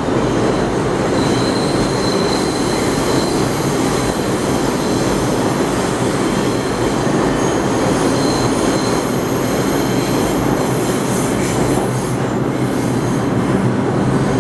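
An R142 subway train running through the station: a loud, steady rumble of steel wheels on rail, with a thin, high-pitched wheel squeal held over it.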